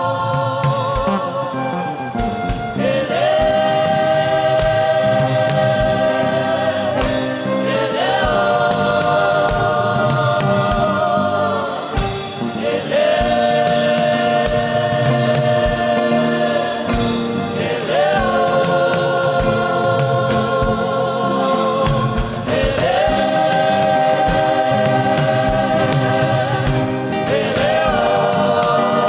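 Gospel worship music: several voices singing long held chords with vibrato, the chord changing about every five seconds, over a steady low beat.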